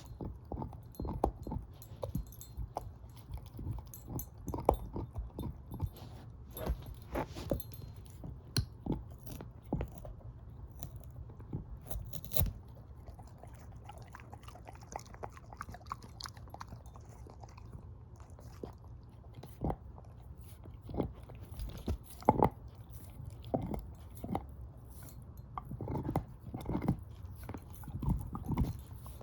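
A shepherd-mix dog chewing and crunching on a bone: irregular sharp cracks and gnawing clicks, some loud, with a quieter spell in the middle.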